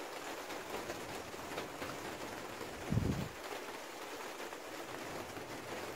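Steady light rain falling on garden plants and soil, with one brief dull thump about three seconds in.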